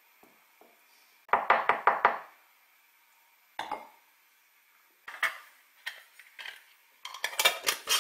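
A wooden spoon tapped about six times in quick succession against the rim of a glass jar, followed by a few single clicks. Near the end, a metal screw lid is set on the glass jar and twisted on, a rapid run of clicks and scraping.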